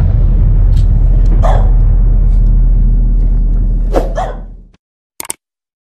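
Intro logo sound effect: a loud, deep rumbling boom with a few dog barks layered over it, fading out about three-quarters of the way through, followed by a short click near the end.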